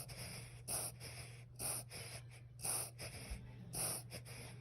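A ten-year-old toy poodle's noisy breathing fit, coming as harsh bursts about a second apart, four times. The owner asks whether the fit is reverse sneezing.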